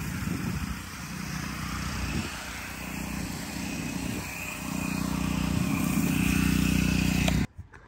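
Pressure washer running steadily, its machine hum getting louder about halfway through, while the wand's spray hisses and splatters on wet asphalt as the driveway is rinsed. The sound cuts off abruptly near the end.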